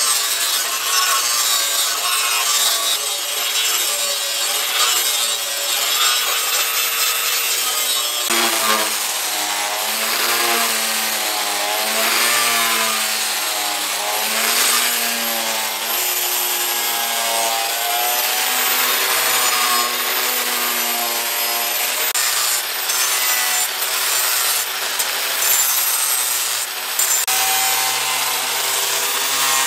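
Electric angle grinder grinding a steel knife blade, throwing sparks. The motor whine wavers up and down in pitch as the disc is pressed and eased along the metal.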